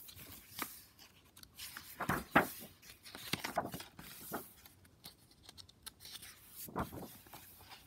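Pages of a hardcover picture book being turned by hand: a series of short paper swishes and rustles, the sharpest about two and a half seconds in.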